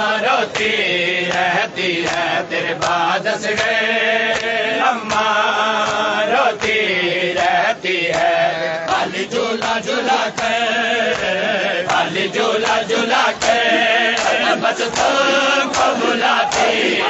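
Men's voices chanting a Shia nauha lament, overlaid by a steady beat of sharp slaps from hands beating on bare chests (matam).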